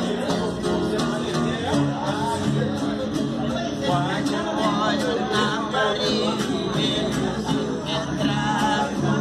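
Acoustic guitar and viola caipira strumming and picking a sertanejo raiz tune, with a man singing over it from about four seconds in.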